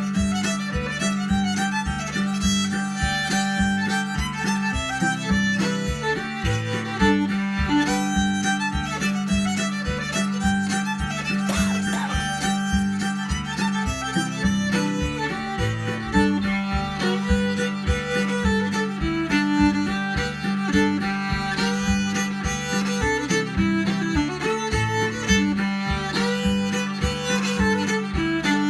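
Fiddle playing a tune over a steady low drone note, with an even rhythmic pulse.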